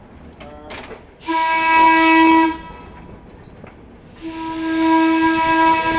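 A trolley car's air whistle sounds two long, steady blasts, the second one longer, as a warning for the street crossing just ahead. Each blast has a rushing hiss of air over its tone.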